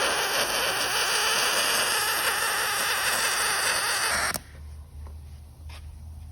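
Aluminum MIG welding arc from a Miller welder running aluminum wire under 100% argon: a loud, steady hiss that cuts off sharply about four seconds in as the weld stops.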